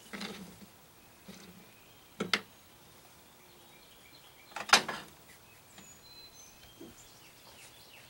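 A few short knocks and clunks from tools being handled and set down at a work table, the loudest a little before five seconds in and another sharp one just after two seconds; faint bird chirps between them.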